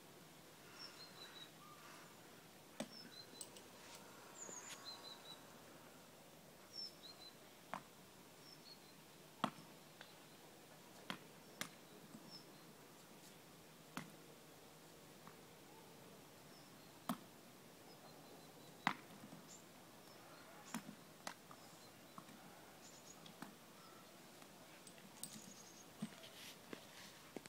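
Sharp, separate knocks of swingball rackets hitting the tethered tennis ball, about a dozen at irregular intervals, mostly one to three seconds apart, as the ball is batted back and forth around the pole.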